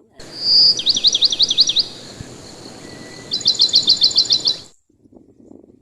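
A bird singing loudly: a short high whistle, then a run of about eight quick down-slurred chirps, and after a pause of about a second and a half a second, faster run of about ten sharp chirps, over a steady hiss that cuts off abruptly near the end.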